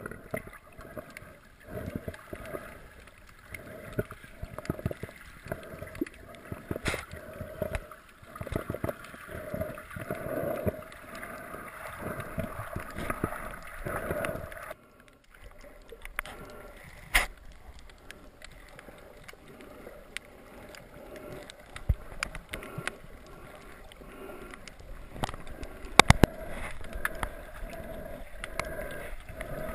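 Muffled water sloshing and gurgling around an underwater camera, with many irregular knocks and scattered sharp clicks. The sound drops out briefly about halfway through.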